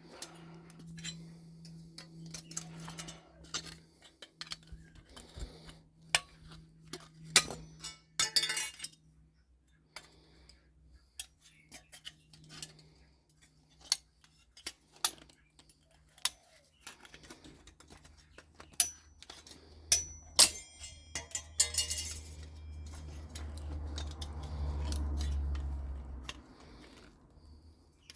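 Pieces of scrap metal clinking and knocking as a stripped-down microwave oven is taken apart and its parts sorted, with a low steady hum underneath. A low rumble swells for several seconds in the second half, then fades.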